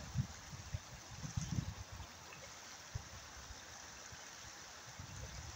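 Shallow river running steadily over stones. A few short low thuds come in the first two seconds and once more about three seconds in.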